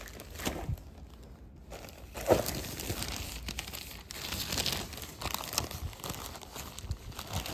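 Clear zip-lock plastic bags of seed packets crinkling and crackling as hands rummage through them. The handling is irregular and gets busier from about two seconds in, with a sharper crackle there.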